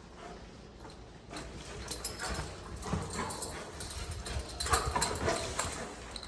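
Doberman puppy's claws clicking and scrabbling on a hard floor as he plays, a rapid uneven patter of taps and scuffs that gets busier and louder about five seconds in.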